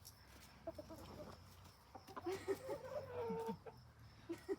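A flock of chickens clucking as they feed on bread: scattered short clucks, busier from about halfway through, with one longer drawn-out call among them.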